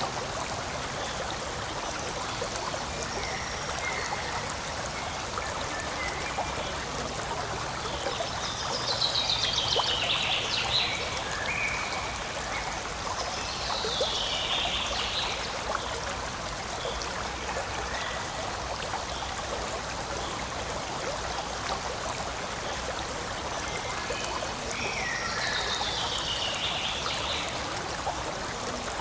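Forest stream flowing with a steady rushing and trickling. Three times, a bird sings a short high phrase that falls in pitch.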